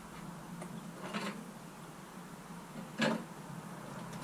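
Handling noises of hands working the hoses and fittings at a KTM 125 Duke's fuel tank: a light rustle about a second in and a louder short clack about three seconds in, over a low steady background.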